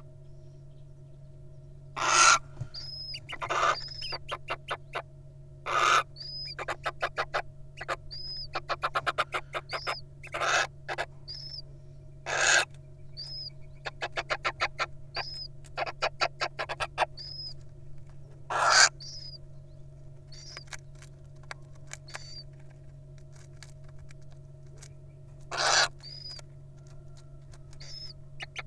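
Little owl calls: harsh, hissing screeches of about half a second, repeated every few seconds, with rapid runs of clicks between them and faint short high chirps roughly once a second. A steady low hum runs underneath.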